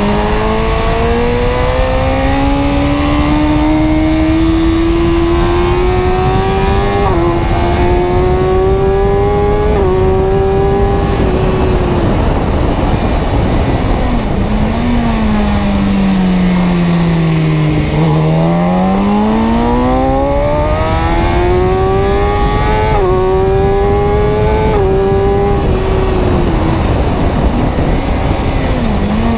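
A car engine accelerating up through the gears, its note rising and dropping briefly at each shift. It slows down with the pitch falling, then accelerates again through two more shifts before easing off near the end.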